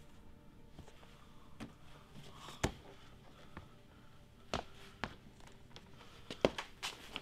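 A scattering of soft knocks and taps, the clearest two about two and a half and six and a half seconds in, over a faint low hum.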